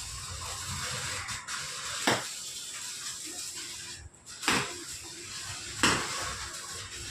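Electric arc welding: a steady frying hiss, cut off briefly a little past halfway, with three sharp metallic knocks about 2, 4.5 and 6 seconds in.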